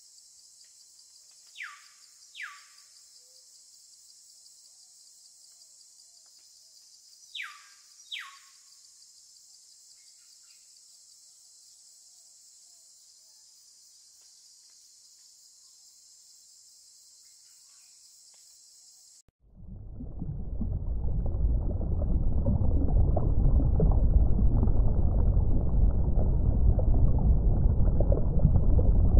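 Steady high-pitched insect chorus, with a bird's falling whistled calls in two pairs about six seconds apart. About two-thirds of the way in it cuts abruptly to a loud, low underwater rumble of moving water.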